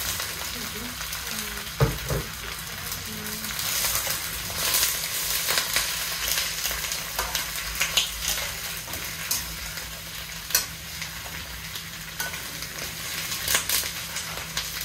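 Chinese cabbage sizzling as it is stir-fried in a hot wok over medium-high heat, with a slotted metal spatula scraping and clicking against the pan. A sharp clack comes about two seconds in and another about ten and a half seconds in.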